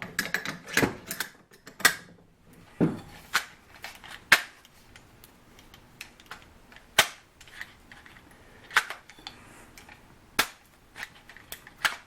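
AR-15 rifle parts being handled: bolt carrier group and upper receiver giving sharp metal clicks and clacks at uneven intervals, a dozen or so, some loud.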